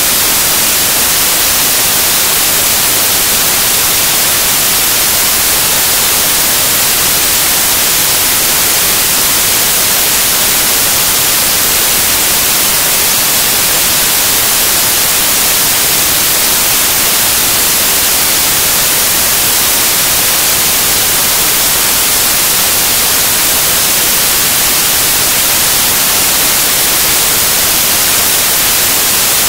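Loud, steady static hiss, even and unchanging, with no other sound over it.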